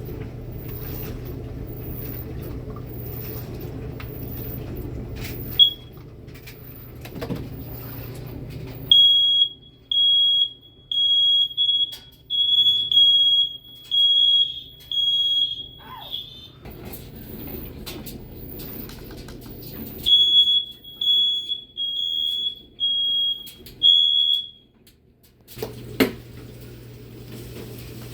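Smoke alarm under test: a short chirp about six seconds in, then its high-pitched beep sounding in rapid repeated pulses for about seven seconds, stopping, and pulsing again for about four seconds. A steady low hum runs under the start and the end, and a sharp click comes near the end.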